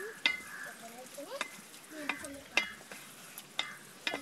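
A ladle stirring thick curry in a steel cooking pot, knocking and scraping against the pot about six times with short metallic clicks, over the faint sound of the curry cooking.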